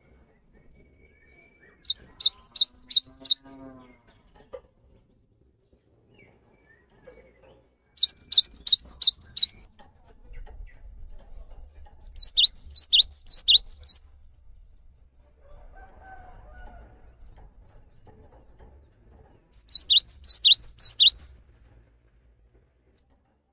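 Cinereous tit (gelatik batu) singing: four bouts of quickly repeated high, falling whistled notes, about four notes a second, each bout lasting under two seconds, with pauses between.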